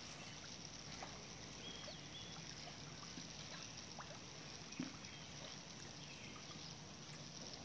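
Faint lapping and splashing of pool water as a dog paddles through it, with a single sharper click about five seconds in.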